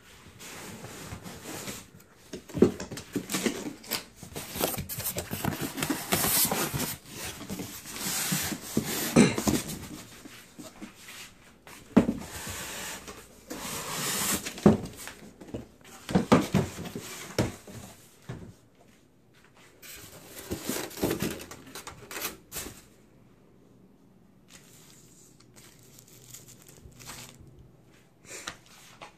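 Cardboard monitor box being opened and handled: irregular scraping, rubbing and rustling of the cardboard, with several sharp knocks. It quietens after about 23 seconds to faint, sparse rustling.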